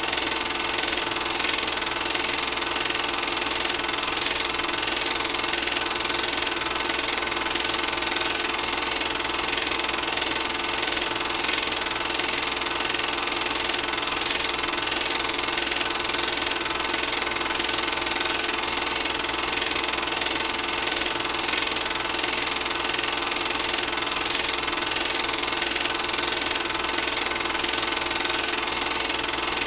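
Old film projector running, its mechanism giving a steady, rapid clatter as it drives the film reel.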